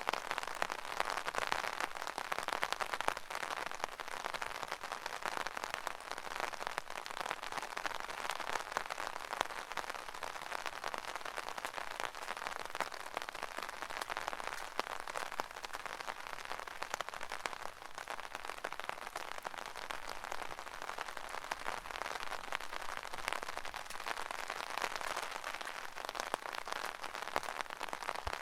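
Rain pattering steadily on an umbrella's fabric canopy: a dense, even spatter of drops with small swells in intensity.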